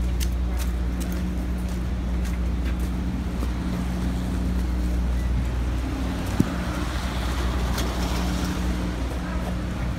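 City street traffic: a steady low hum of idling engines, with tyre and engine noise swelling as a car passes close about seven seconds in. A single sharp click sounds about six and a half seconds in.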